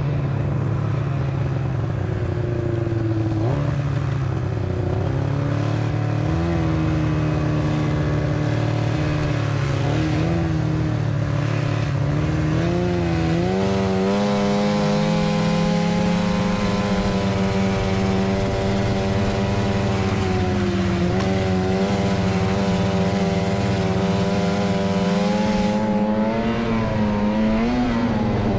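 Old snowmobile's engine running as the sled travels along a groomed trail. It holds a steady pitch, rises about halfway through as the throttle opens, dips briefly later, and climbs again near the end.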